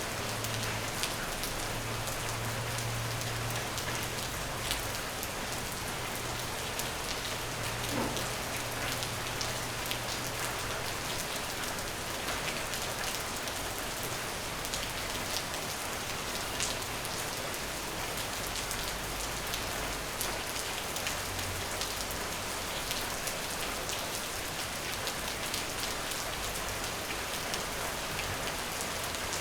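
Steady rain falling on a surface: a dense, even patter of many raindrops, with a faint low hum underneath during the first third.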